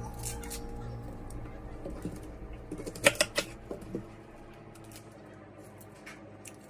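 A kitchen knife working on an onion: faint scraping, then a quick run of sharp knocks of the knife blade against the counter board about three seconds in.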